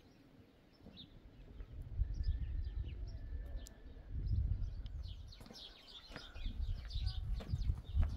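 Small birds chirping, with the chirps growing busier in the second half. Over them, low gusts of wind rumble on the microphone from about two seconds in.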